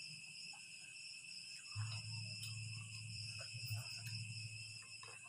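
Steady chorus of crickets, with soft smacking and clicking sounds of people eating grilled fish by hand. A low steady hum comes in about two seconds in.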